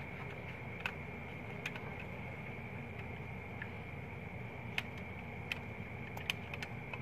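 Steady workshop background noise with a constant high-pitched whine, and half a dozen short, sharp clicks spread through it.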